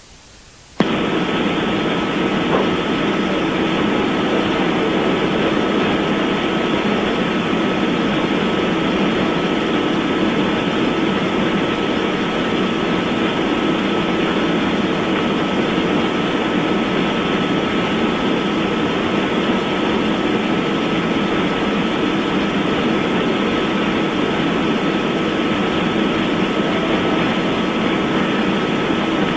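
Loud, steady electronic hiss with a faint steady tone through it, switching on abruptly about a second in: noise on the hearing's audio feed rather than any sound in the room.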